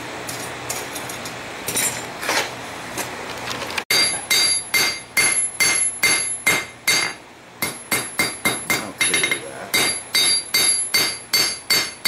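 Hand hammer striking hot stainless steel on an anvil while the knife's handle is forged out, each blow followed by a bright anvil ring. A few lighter, scattered taps over a hiss come first; about four seconds in the sound cuts and steady, loud hammering begins, about three blows a second.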